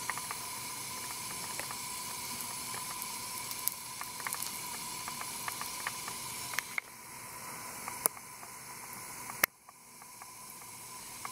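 Steady hiss of an oven's gas broiler burner, with scattered small ticks and crackles. The hiss drops a little about two-thirds of the way through, and drops sharply after a loud click near the end before slowly building back.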